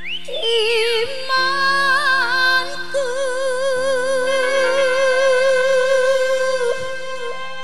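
A singer with a high voice holding a long note with wide vibrato over sustained backing chords, after a short sliding phrase near the start.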